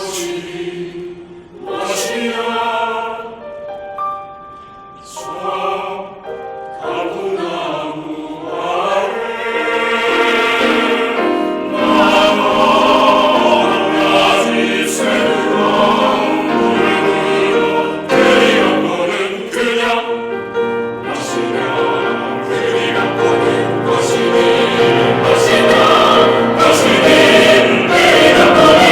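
Choir singing a Korean choral song, starting in short phrases and growing louder and fuller from about ten seconds in.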